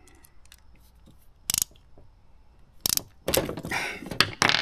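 Ratcheting screwdriver clicking as it tightens a hose clamp on a boat's fuel line at the primer bulb: a brief run of rapid clicks about a second and a half in, then longer runs of clicking near the end.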